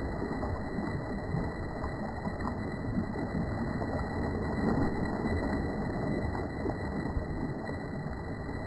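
Choppy sea water sloshing and splashing around a swimmer, an irregular low rushing noise.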